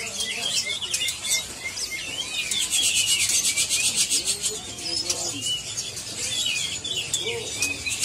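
Many small caged songbirds chirping and twittering together, with a fast, dry, rasping rattle in the middle.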